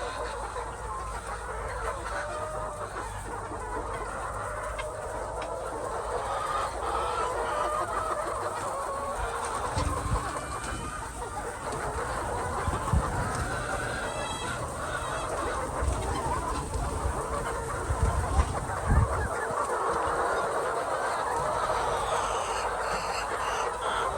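A large flock of laying hens clucking continuously, many birds calling over one another, with a few low thumps in the middle.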